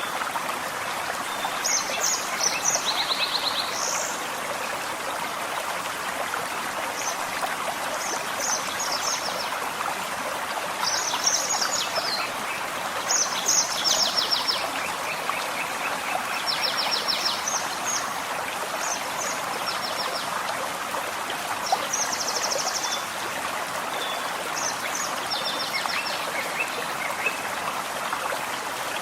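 Gently flowing forest stream, a steady rushing babble, with songbirds singing short rapid trills over it every second or two.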